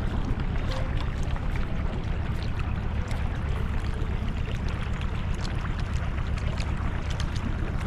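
Fishing boat running across calm water: a steady low rumble from the motor and air rushing past, with water hissing and splashing along the hull.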